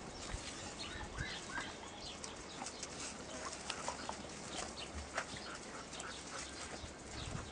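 Dogs playing and scuffling on sandy ground: many short scrapes and taps from paws on dirt, with a few brief high chirps in the first couple of seconds.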